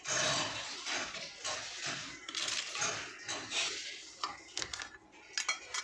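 Stainless steel plate and cookware being handled, clinking and scraping, with a few sharp clinks near the end.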